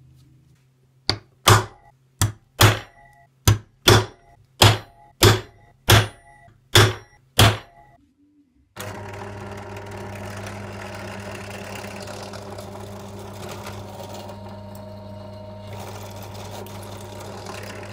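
About eleven loud, sharp knocks with a short ring, unevenly spaced over the first several seconds. Then, about nine seconds in, a benchtop drill press motor starts and runs with a steady hum.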